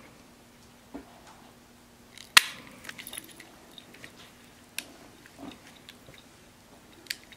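Sharp snaps of a guillotine-style pet nail clipper squeezed to cut a dog's claws. The loudest snap comes about two and a half seconds in, with smaller clicks near one, five and seven seconds.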